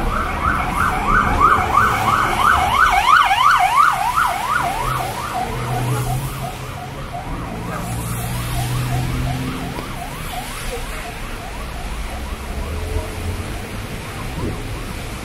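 Emergency vehicle siren on a fast yelp, its pitch sweeping up and down about three to four times a second, loudest in the first few seconds and then fading steadily. A low traffic hum runs beneath it.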